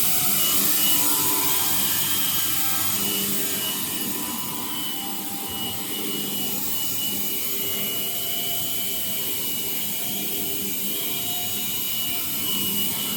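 XH7132 CNC milling machine running its demonstration program: a steady mechanical hiss with motor tones that rise and fall every few seconds as the axes speed up and slow down.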